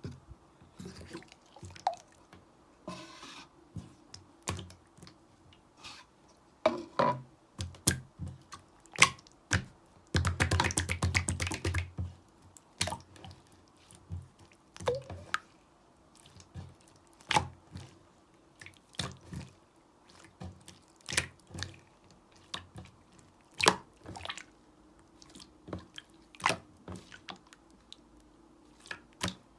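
Slime being squeezed and pressed by hand, giving irregular sharp wet pops and clicks about a second apart, with a longer run of dense crackling squelches about ten seconds in.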